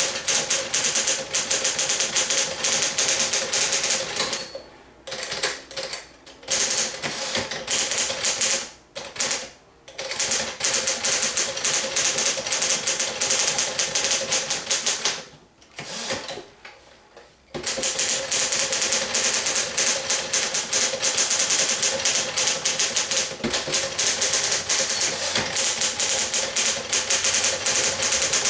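A 1955 Smith-Corona Sterling manual portable typewriter being typed on in a fast, steady run of key strikes, broken by a few short pauses.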